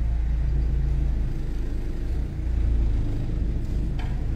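Low, steady rumble of a car engine and road noise, with a short click about four seconds in.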